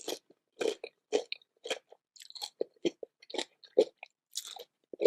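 Close-miked chewing and biting of food, a string of short crunchy chews about two a second.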